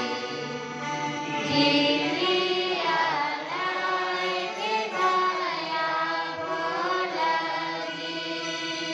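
Liturgical singing at Mass: a melody sung over sustained, held chords from an accompanying instrument.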